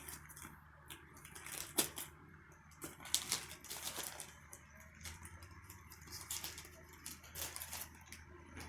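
Faint handling sounds of a package being opened: scattered small clicks, taps and short scrapes, with a few sharper clicks in the first half.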